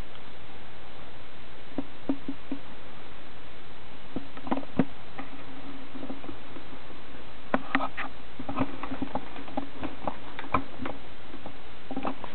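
A guinea pig moving about in wood-shaving and newspaper bedding: scattered light clicks and rustles, in small clusters, over a steady hiss.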